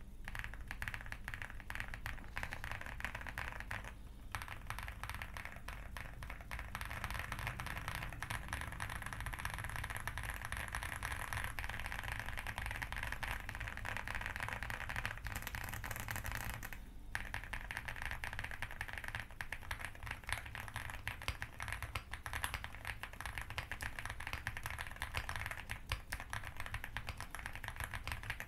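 Steady fast typing on an Aula Hi75 full-aluminium mechanical keyboard with TTC Superman linear switches and Cherry-profile keycaps, a dense run of keystroke clacks with brief pauses about 4 and 17 seconds in.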